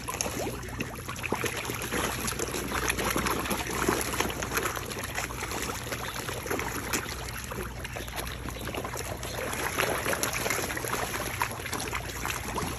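A packed crowd of large fish, striped bass among them, splashing and gulping at the water's surface in a feeding frenzy on floating popcorn. The sound is a continuous mass of small, quick splashes and slurps.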